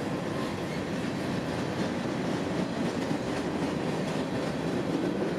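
CSX freight train rolling past, a steady, even rumble of wheels on rail.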